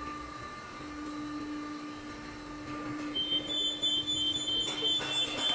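SPT299 spider crane's hydraulic power unit running with a steady hum while the outriggers are moved. About three seconds in, a high-pitched, slightly broken alarm-like tone starts up over the hum, with a brief rush of noise near the end.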